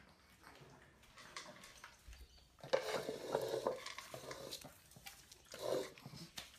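Pug eating from a food bowl on a tiled floor: the bowl knocking and scraping, and kibble being eaten. It is quiet with small clicks at first, loudest about three seconds in, with a shorter burst near the end.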